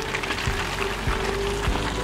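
Background music with a steady beat and a held tone, over a steady rushing noise.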